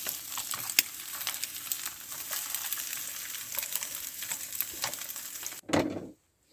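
Food sizzling in a frying pan, a steady hiss with many small pops; it cuts off abruptly near the end, followed by one brief louder sound.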